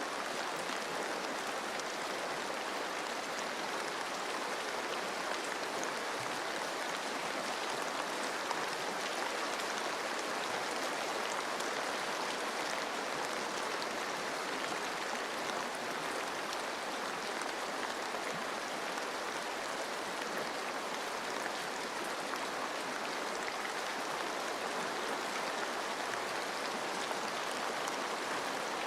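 Steady rain falling on forest leaves mixed with running stream water: an even, unbroken hiss.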